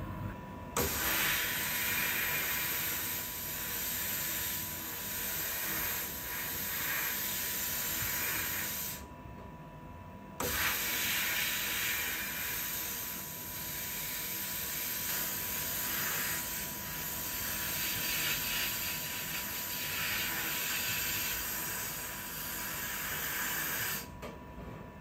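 Pressurised spray nozzle hissing in two long bursts, switched on and off sharply, with a short break between them.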